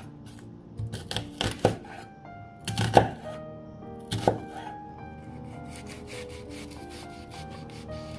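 A chef's knife cutting through a peeled onion and knocking on a bamboo cutting board: about six sharp knocks in the first four and a half seconds, the loudest about three seconds in, over background music.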